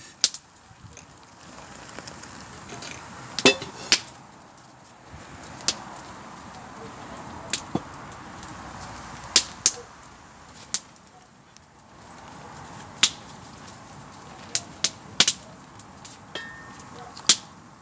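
Irregular sharp clicks and cracks, about fifteen of them, over a low rushing hiss that swells in the middle.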